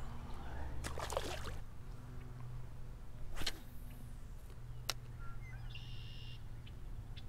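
A small splash as a crappie is dropped back into the water, then a few sharp clicks of rod and spinning-reel handling as the jig is cast out again, over a low steady rumble.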